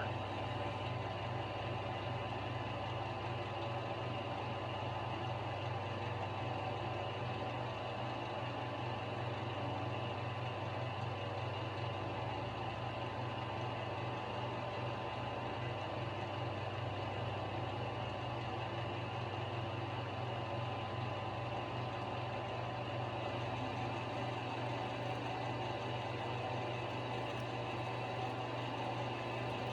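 Grizzly G0776 metal lathe running steadily as it turns down a shank to a shoulder: a constant motor-and-gear hum with a low drone and a few steady higher tones.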